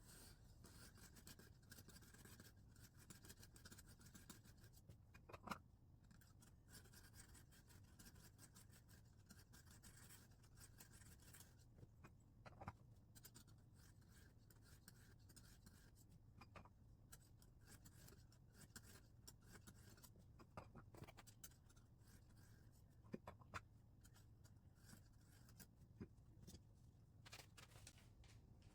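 Faint scratchy scraping of a Lansky fine diamond hone stroked along a knife edge in a guided-angle sharpener, with a few light clicks scattered through it.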